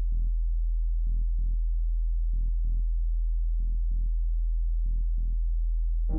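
Electronic music: a steady, deep sine-like drone under a soft double pulse, like a heartbeat, that repeats about every second and a quarter. At the very end a fuller chord comes in.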